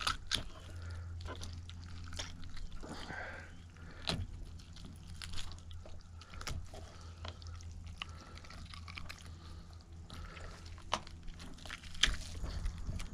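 Hands gutting a rainbow trout on a plastic cutting board: wet squishing and pulling of the entrails, with scattered small clicks and scrapes.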